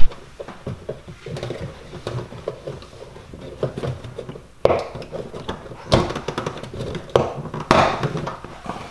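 Plastic push-pin clips and underbody trim on a 2015 Mustang's rocker panel being worked loose by hand: scattered light plastic clicks and rattles, with a few sharper knocks and short scraping rustles from about halfway through.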